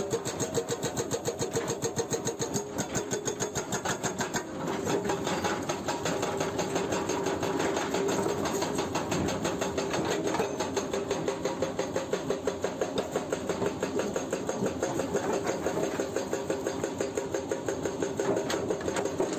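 Hydraulic breaker on a Hyundai 210LC-7H excavator hammering with rapid, even blows, over the excavator's running engine. The blows ease briefly about four seconds in, then carry on.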